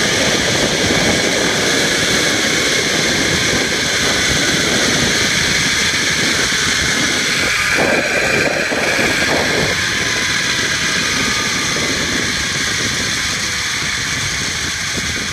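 Zip line trolley running along the steel cable with a steady whirring rush, mixed with wind buffeting the microphone, easing off a little near the end.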